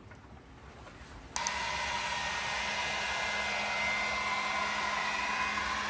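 Heat gun switched on about a second and a half in, then blowing steadily with a faint whine. It is drying freshly applied body putty on a painted steel door.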